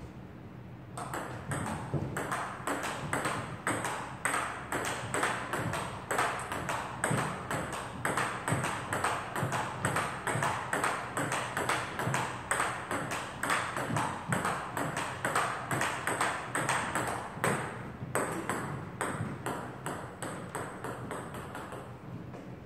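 Table-tennis rally: the ball clicking off rubber paddles and the table in a quick, even rhythm of several hits a second. The hits stop briefly about eighteen seconds in, then pick up again.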